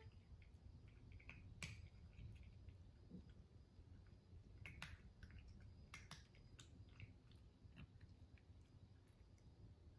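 A Russian Blue cat eating dry kibble from a bowl: faint, irregular crunching clicks as it chews.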